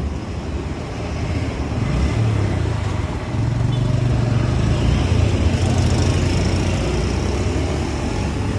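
Road traffic passing close by: a vehicle's engine and tyre rumble grows louder about three seconds in and eases off near the end.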